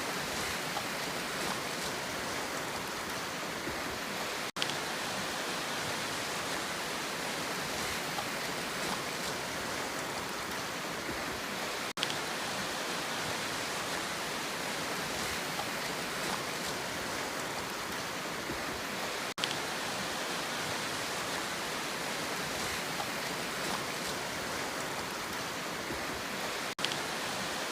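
Steady rushing sea noise, an even hiss of surf without distinct wave breaks, with a brief sudden dropout four times at regular intervals of about seven seconds.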